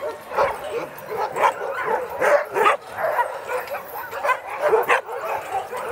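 Many sled dogs barking and yipping at once, a dense overlapping chorus of high, rising and falling calls.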